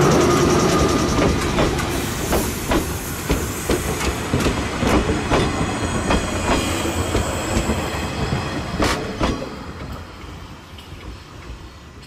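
413/455-series electric train rolling slowly over the track, its wheels clicking irregularly over rail joints, growing steadily fainter as it moves away.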